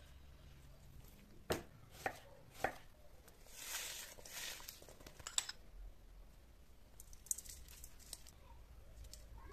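Three sharp chops of a knife through a skinned rabbit against a wooden cutting board, then a stretch of wet rustling as sliced onions are squeezed and mixed by hand in a steel bowl, with a few light clicks near the end.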